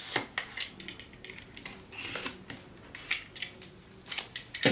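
Plastic packaging wrap being handled. There are irregular clicks and taps with short crinkly scrapes, the loudest just after the start and about two seconds in.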